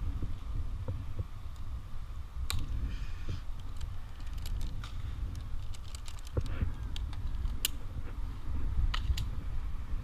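Scattered sharp clicks and clinks of metal climbing hardware, carabiners and rope devices, as a climber handles his rope, over a steady low rumble on a helmet camera.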